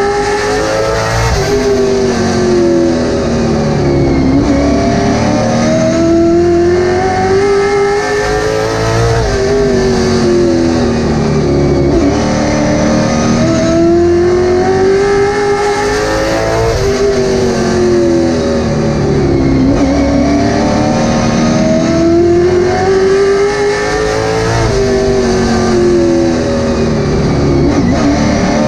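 Late model stock car's V8 engine heard from inside the cockpit while racing, its pitch climbing and falling over and over as it accelerates and lifts.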